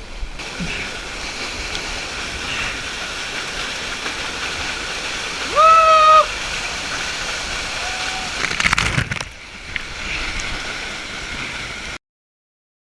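Waterfall water rushing steadily, with a single short high-pitched held cry, like a voice, about halfway through and a brief splash or knock a few seconds later. The sound cuts off abruptly near the end.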